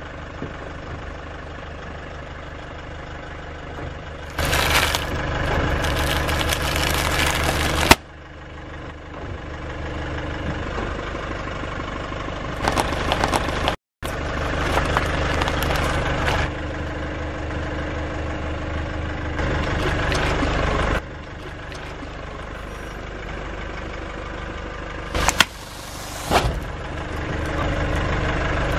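Car engine idling while a tyre rolls over and crushes objects. A liquid-filled rubber glove bursts and gushes for a few seconds, fruit is squashed after that, and two sharp cracks come near the end.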